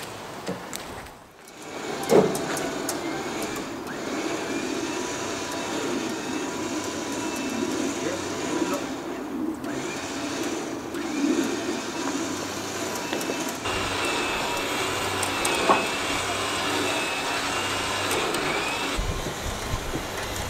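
A vehicle engine running steadily, with a faint thin high whine over it at times. There is a sharp knock about two seconds in and another brief knock later on.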